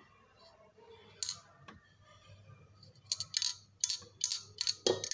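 Sharp clicks and light metal taps from handling the dismantled parts of a washing-machine spinner motor: its metal base plate and stator. One click comes about a second in, then a quick run of about eight clicks in the last two seconds, ending in a duller knock.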